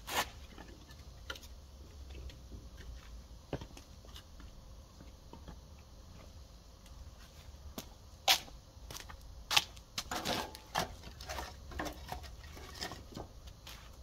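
Split firewood pieces knocking and clacking against each other and against a steel fire basket as it is loaded by hand, with scattered sharp knocks, the loudest about eight and nine and a half seconds in and a quick run of them soon after. Footsteps in slippers on concrete come in between.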